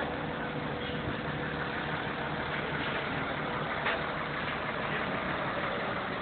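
Crane truck's engine idling steadily while it runs the loader crane, with a single brief knock about four seconds in.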